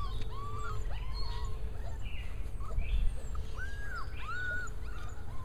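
Several young puppies whining and whimpering, a run of short high arching whines in quick succession, some overlapping, over a low steady rumble.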